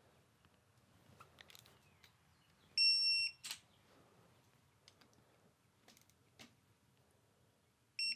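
Electronic torque wrench beeping as the guide bolt reaches its 6.4 N·m setting: one steady beep lasting about half a second some three seconds in, a sharp click just after, and a quick run of short beeps starting right at the end. The bolt has been taken a hair past the set torque. Faint clicks of the tool come in between.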